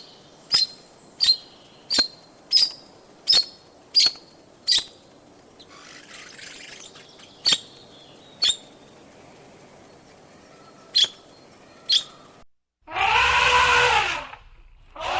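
An animal's calls: about eight short, sharp chirps in quick succession, roughly one every 0.7 seconds, then a few more spaced out. Near the end comes a much louder, longer call that rises and falls in pitch.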